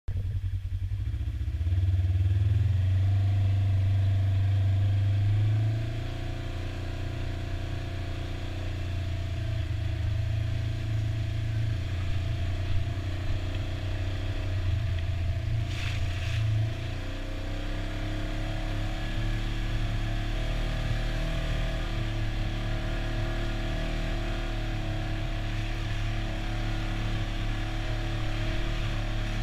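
Side-by-side UTV engine running under way, heard from the driver's seat. The note rises and falls with the throttle: louder for the first few seconds and again through the middle, steadier near the end. There is a brief rushing sound about halfway through.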